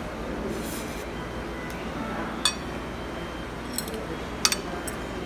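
Metal spoon clinking against a dish a few times, sharpest about two and a half and four and a half seconds in, over the steady background hum of a restaurant dining room.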